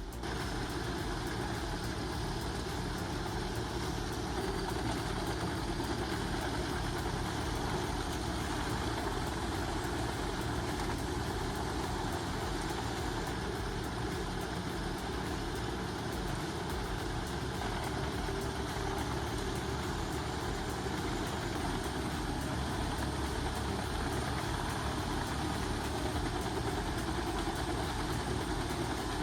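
Heavy machine's engine running steadily under continuous load, a dense low rumble with no clear change throughout.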